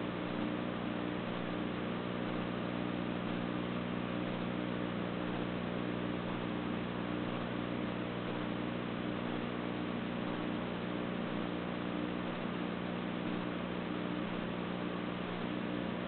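Steady electrical hum with hiss: several constant low tones over an even hiss, unchanging throughout, with no music audible.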